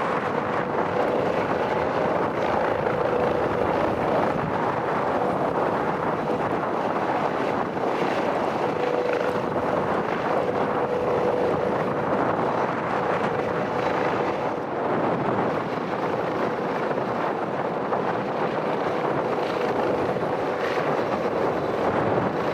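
Strong wind buffeting the microphone over a steady aircraft engine drone, with a faint hum that fades in and out.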